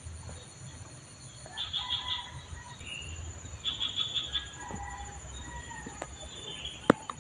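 Birds chirping in short, repeated trills over a steady thin high whine like insects. There is one sharp click just before the end.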